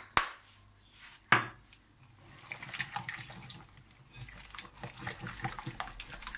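Wire whisk beating blini batter with egg yolks just added in a glass bowl: two sharp knocks in the first second and a half, then quick, steady clicking and wet slapping of the whisk against the glass from about two and a half seconds in.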